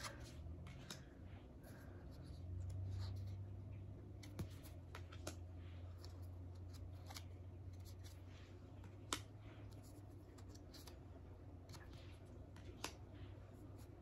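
Thick oracle cards with a satiny finish being handled one at a time, moved from the front of the deck to the back: faint sliding with a dozen or so soft, irregular clicks of card edges. A faint steady low hum runs underneath.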